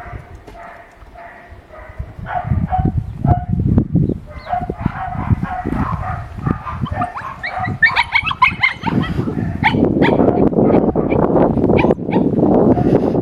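Dogs barking and yipping in short repeated calls, with a quick run of high yelps about eight seconds in; a loud, steady noise without clear pitch takes over in the last few seconds.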